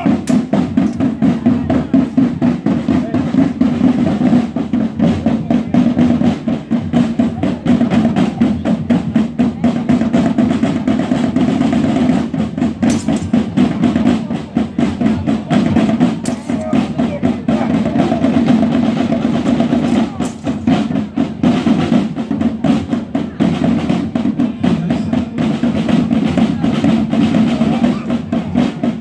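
A corps of side drums (snare drums) played in a continuous, rapid roll that does not let up, with deeper drum strokes under it.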